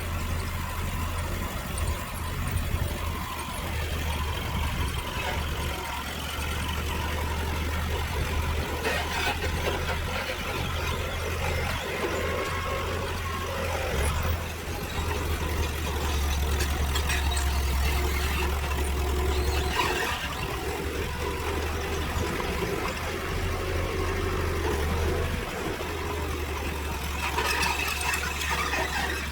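Diesel engine of heavy earthmoving machinery running steadily, with a low rumble and a few short metallic clanks.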